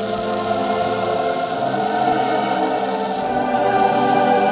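Background music: voices like a choir holding long, slowly changing notes, growing slightly louder.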